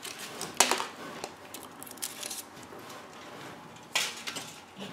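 Thin aluminium foil wrapper crinkling as it is peeled off a Kinder Surprise chocolate egg, in a few short crackles, the loudest about half a second in and another about four seconds in.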